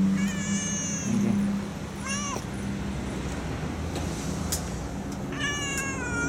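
Black-and-white domestic cat meowing three times: a drawn-out high meow, a short meow that rises and falls about two seconds in, and another long, slightly falling meow near the end. A low hum underneath fades out in the first second and a half.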